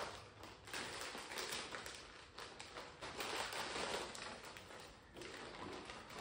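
Clear plastic bag crinkling and rustling as dried pieces are tipped out of it and rattle into a steel plate, a steady crackle with many small clicks.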